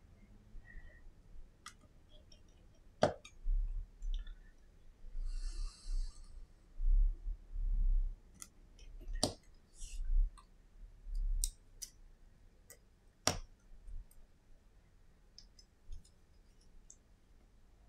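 Small clicks and taps of a precision screwdriver and tiny parts against an iPhone SE's metal frame on a silicone repair mat, with three sharper clicks and dull low bumps of the phone being handled. A short rasp comes about five seconds in.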